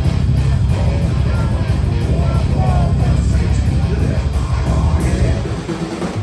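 Loud live heavy band playing distorted electric guitars and drums, dense and bass-heavy. It eases off slightly near the end.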